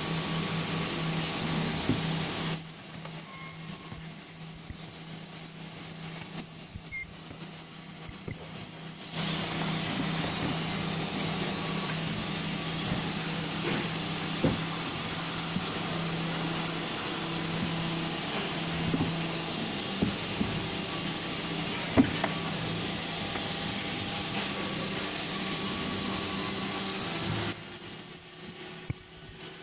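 Handheld ultrasonic welding gun running against a plastic part: a loud, steady hiss with a low hum underneath. It stops a few seconds in, starts again about nine seconds in, and cuts off sharply near the end, with a few light clicks in between.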